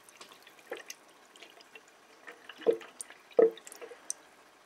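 Water dripping from a filling hose into a partly filled plastic jug of water: a few separate plops, the loudest about two and a half and three and a half seconds in.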